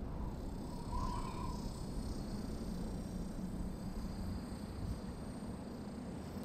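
Desert ambience: a steady low rushing noise, with one short bird call about a second in.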